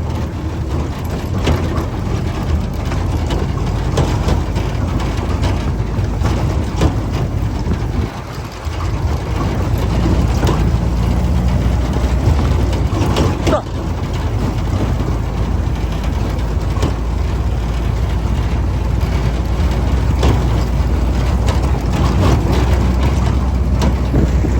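1952 Willys M38A1 jeep driving, its four-cylinder F-head engine running steadily, with scattered rattles and knocks from the vehicle. The engine note drops away briefly about eight seconds in, then comes back up.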